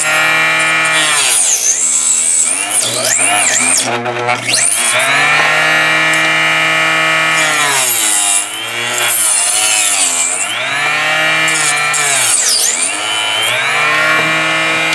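Harbor Freight 2-inch mini top cut-off saw running and cutting through a thick 3D-printed plastic part. The motor's whine drops in pitch each time the blade bites and climbs back as the cut eases, several times over, because the piece is a little too thick for this saw.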